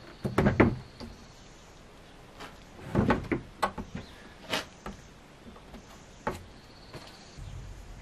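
A small timber shed's lid and corrugated plastic sheeting being handled: two bursts of knocking and clattering, then a few single sharp knocks.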